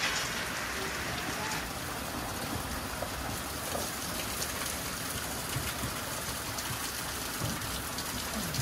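Steady rain falling, an even hiss with faint scattered drops ticking.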